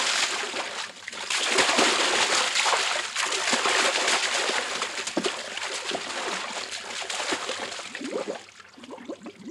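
Lake water splashing and sloshing heavily beside a rowboat as a man is pushed overboard, loudest at first and easing off near the end.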